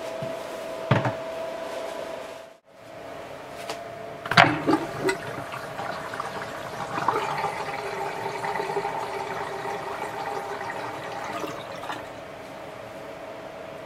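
A few knocks, then water running down a washbasin's drain with a steady rushing swirl that weakens near the end.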